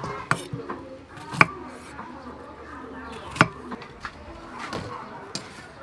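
A few sharp knocks of a knife striking a thick wooden chopping board while green fruit is cut into wedges, the loudest about one and a half and three and a half seconds in.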